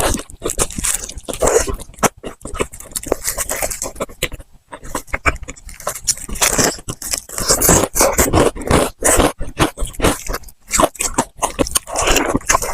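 Close-miked eating sounds: a person biting and chewing crunchy fried food, with a dense run of crackles and wet mouth noises.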